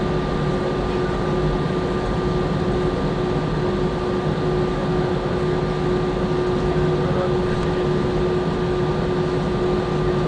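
Airbus A320 cabin noise during taxi: the engines at idle and the air-conditioning make a steady rushing hum, with two steady whining tones over it.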